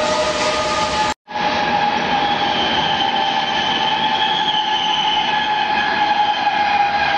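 Train horn sounding steadily, several tones held together. About a second in it cuts out abruptly for a moment, then returns as a different chord that holds steady.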